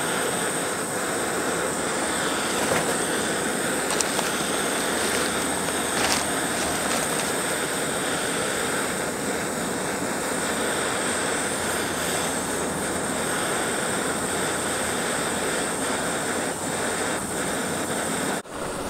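BRS canister gas stove burning with a steady hiss under an enamel percolator of water as it heats toward a boil.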